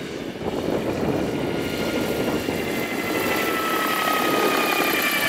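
Jakadofsky Pro 7000 model turbine of an RC scale Lama helicopter, its whine slowly falling in pitch over the rush of the rotor blades as the helicopter comes down to land after its closing autorotation.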